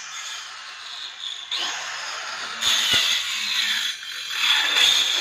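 Handheld electric cutter machine (circular saw) cutting a shallow groove along the edge of a plywood panel: a high-pitched motor whine and cutting noise that swells and eases as the blade is pushed along, loudest in two stretches in the second half. The groove is for fitting a G-section profile handle strip.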